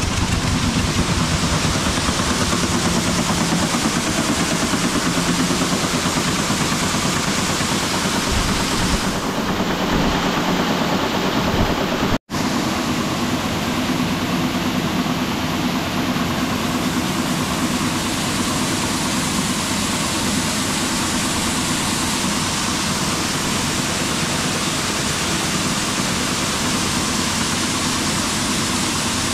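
A stationary diesel engine running steadily, turning a belt pulley, with grain-handling machinery going. After a brief cut about twelve seconds in, a steady rush of grain pouring from the central spout into the dryer's bin.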